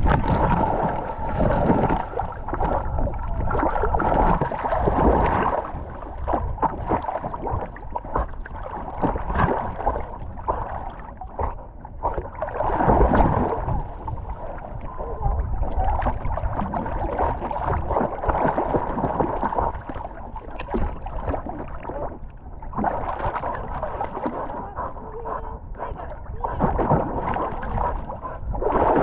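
Cocker spaniel wading and swimming through shallow water among reeds: close-up sloshing and splashing of water that swells and eases unevenly, with reeds brushing past, heard from right on the dog's back.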